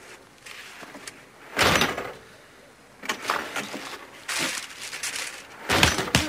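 A door slams shut about a second and a half in, followed by several smaller knocks and thuds.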